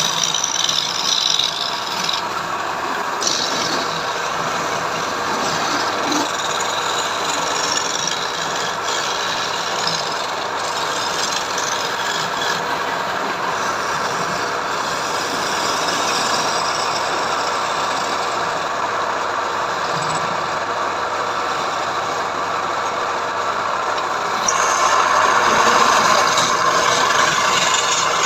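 Steady mechanical running noise from a machine, with no regular rhythm, growing louder near the end.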